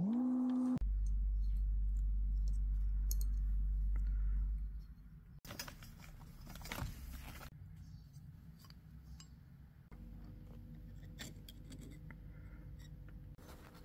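A steady low hum, with a short rising tone at the start, stops about four and a half seconds in. After it come light metal clinks and scraping from hand work on a brass knife guard, with a few sharp strokes of a file on the brass near the end.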